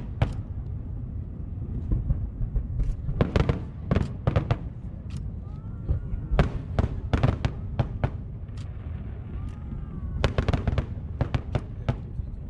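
Aerial fireworks going off in rapid clusters of sharp bangs, about four volleys, over a steady low rumble.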